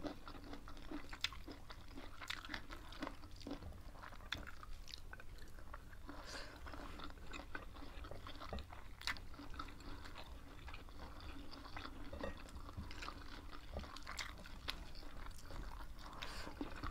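Close-miked eating sounds: two people chewing food, with many small irregular crunches and clicks.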